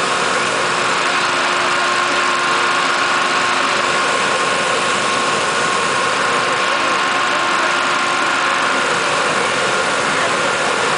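Hot air balloon's propane burner firing continuously into the envelope to heat the air during inflation: a loud, steady roar with a few faint steady tones running through it.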